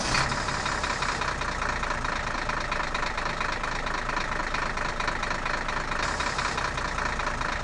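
Steady engine-like rumble with a fast, even rattle, heard as the toy truck and tractor are driven along.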